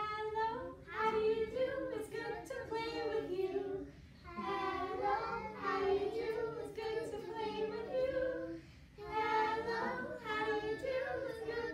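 Young children and a woman singing a song together, in three phrases with short breaks between them.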